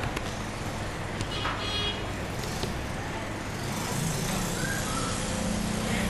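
Steady background road-traffic noise, a hiss with low rumble, and a low engine hum that grows about four seconds in. A few faint keyboard clicks come near the start.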